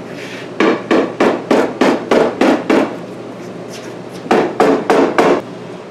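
Rubber mallet tapping the rubber-lined window channel onto the door glass to seat it. There is a quick run of about eight blows, a pause of about a second and a half, then about five more.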